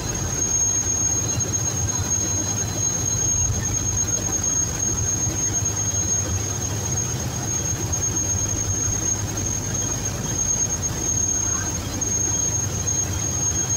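Boat engine running steadily as a low rumble, with a constant high-pitched whine over it.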